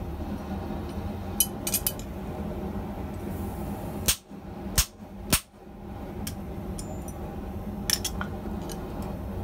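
Three hammer blows in quick succession near the middle, each a sharp metallic ring, as a hammer drives a top serrated steel rack piece down onto a hot steel bar set in a matching rack on the anvil. Lighter metal clinks of tongs and steel come before and after, over a steady low hum.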